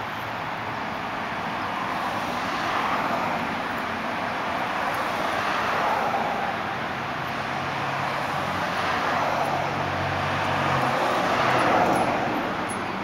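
Street traffic: cars passing one after another, each swelling and fading, the loudest near the end. A low engine hum runs under the middle stretch.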